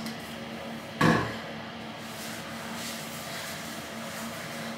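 A single sharp thump about a second in, the loudest thing here, then faint soft rubbing of a fabric tanning mitt being worked over bare skin.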